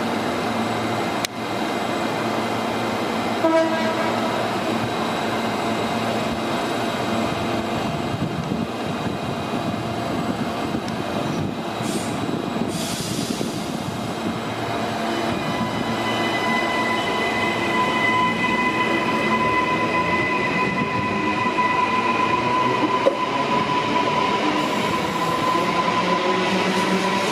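Queensland Rail electric multiple-unit train moving along the platform with a steady rumble of running gear. A short horn toot comes about three and a half seconds in, and a brief hiss of air about halfway. From about sixteen seconds a steady electric traction-motor whine rises slightly.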